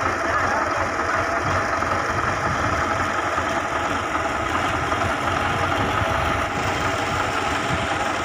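MTZ tractor's diesel engine running steadily, working the front loader that holds up the overturned tractor.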